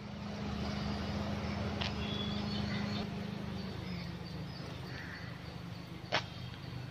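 Street ambience: a steady low mechanical hum, like an idling engine, with birds calling and a sharp click about six seconds in.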